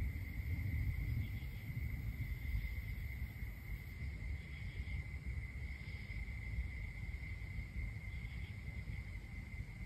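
Crickets trilling in one steady, unbroken high note, with a few fainter insect calls above it. A low rumble runs underneath.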